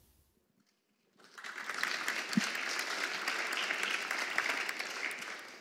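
About a second of near silence, then an audience applauding, swelling in and holding steady.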